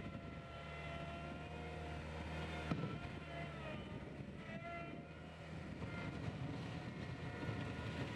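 Skid steer loader running, its engine humming steadily under a whine that slides up and down in pitch. A sharp knock comes a little under three seconds in, after which the engine sound turns rougher and less even.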